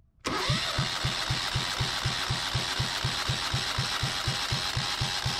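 Yanmar 1GM single-cylinder diesel being cranked over on its starter motor for a compression test, its injector removed and a compression gauge fitted in its place. Steady rhythmic pulses of about six a second over the starter's whir, starting abruptly.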